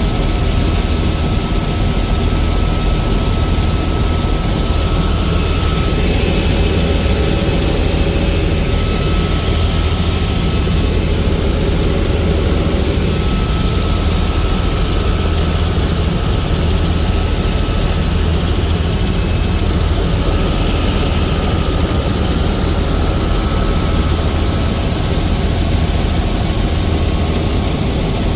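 Helicopter in steady flight: a continuous loud drone of rotor and engine with a deep low rumble and faint steady whines above it.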